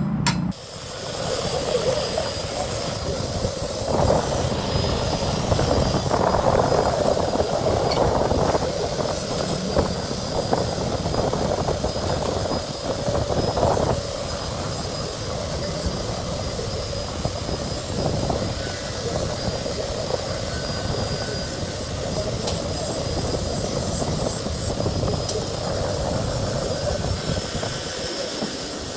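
Angle grinder running and grinding steel, its steady high motor whine under a coarse grinding noise that swells and eases as the blade is worked against the disc.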